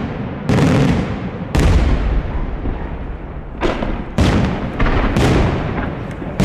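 Daytime aerial fireworks shells bursting overhead with loud bangs. There are about six blasts at uneven intervals, each trailing off, with a short lull in the middle.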